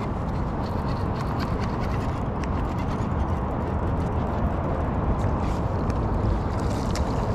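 Wind noise on the microphone: a steady low rumble, with faint scattered ticks over it.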